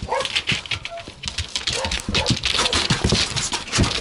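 Dogs' claws scrabbling and clicking rapidly on a wooden board platform, with low thumps of paws and bodies and a few brief dog whimpers.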